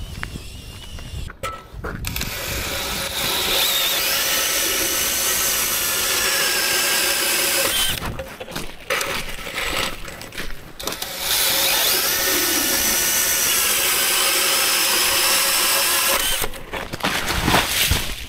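Powered ice auger boring through lake ice. It runs twice for several seconds each time with a pause of about three seconds between, and each run begins with a rising whine as the motor spins up and then holds steady under load. A few knocks near the end.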